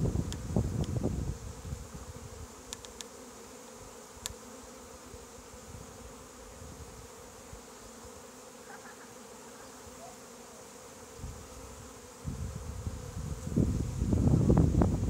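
Honeybee swarm humming steadily as it clusters in a tree. Gusts of wind rumble on the microphone at the start and again from about twelve seconds in, louder than the bees.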